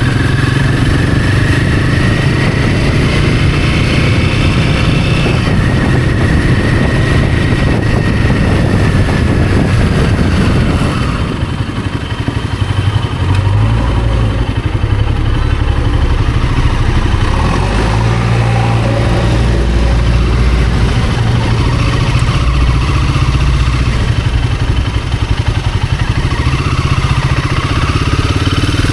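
Royal Enfield Himalayan 450's single-cylinder engine running under way, its note falling about eleven seconds in as the bike eases off and slows, then running at lower revs before building again near the end.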